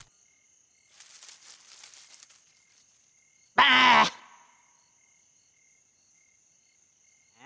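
Cartoon night ambience of crickets chirping in a steady, evenly repeating pattern over a faint high insect drone. A soft rustle comes about a second in, and midway a single loud, short vocal exclamation, "Bah!", from the young crane.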